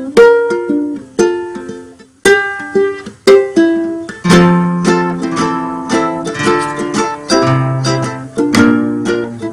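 Background music of plucked string notes, each struck sharply and dying away, with a short gap about two seconds in; from about four seconds in it grows fuller, with a low bass line underneath.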